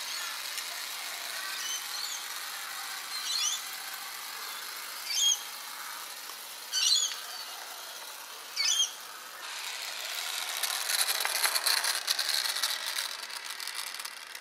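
1:24 scale model electric tram running on garden track, its motor and gearing whirring steadily, with four short high squeals evenly spaced about two seconds apart. For the last few seconds the running grows louder and rattly.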